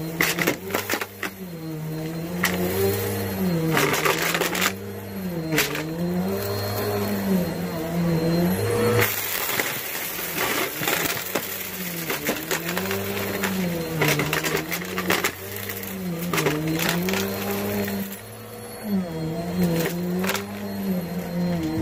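Vacuum cleaner running, its motor pitch dipping and rising every couple of seconds as it is pushed back and forth, with many sharp clicks and crackles of sucked-up debris and coins rattling through it.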